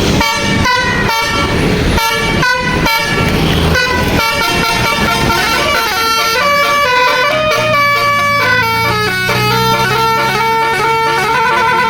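A Basuri telolet musical horn on a bus plays a melody. For the first four seconds or so it gives quick rhythmic toots, then longer held notes that step up and down in pitch.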